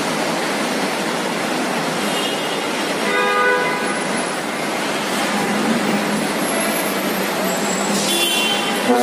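Road traffic ambience: a steady hiss of passing vehicles, with vehicle horns tooting about two and three seconds in and again near the end.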